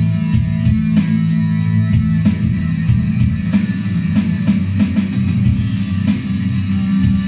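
Electric guitar played through an amplifier and pedalboard, a steady rock riff with low notes, with drums keeping time behind it.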